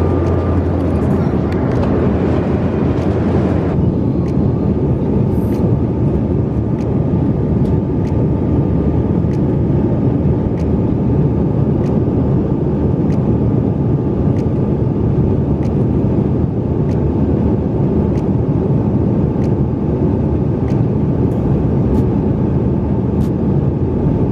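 Steady roar of a small passenger jet's engines and airflow heard inside the cabin in flight, with a higher hiss that drops away about four seconds in.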